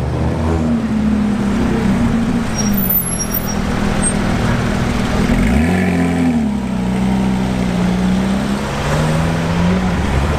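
A sports car engine running loud and steady. A little past halfway in it revs up quickly, then eases back down to a steady note.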